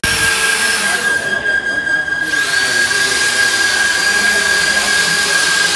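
Handheld electric power tool with a wire brush scrubbing grime off the face of an Isuzu 4BD1 diesel cylinder head: a steady high motor whine under a scratchy hiss. The hiss lets up for about a second a little past one second in while the motor keeps running, then returns.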